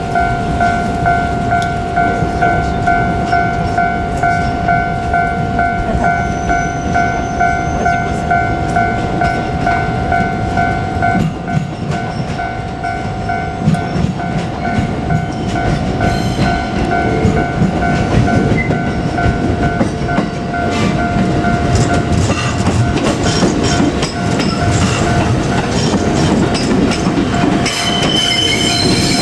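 A level-crossing warning bell ringing as a steady two-tone alarm, strong for about the first eleven seconds and then fainter, while a JR Kyushu 787 series electric express train runs past with continuous wheel rumble and rail clatter. A higher wheel squeal comes in near the end.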